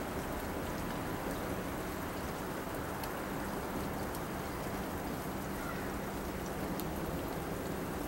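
Wet snow falling steadily, sounding like light rain, with a few faint ticks.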